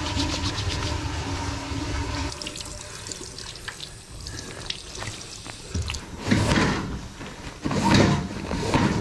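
Water running from a restroom sink tap as soapy hands are rinsed under it. A steady hum stops about two seconds in. Near the end come two loud rustling pulls of paper towels from a wall dispenser.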